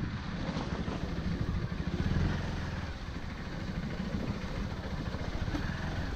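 Motorcycle engine running at low speed with a steady, fast-pulsing low rumble while the bike rides over a rough muddy dirt track; it swells slightly around two seconds in and eases a little after.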